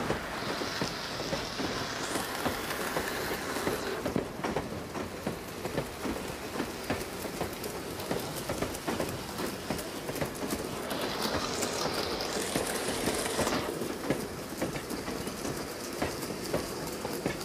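Dubbed-in recording of a train rolling along the track: a steady rumble with irregular wheel clicks over rail joints, and a spell of hiss near the start and again about two-thirds through.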